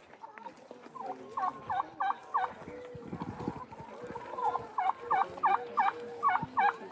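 Turkey calling in two quick runs of repeated notes, about three a second: four notes, then a pause, then six more.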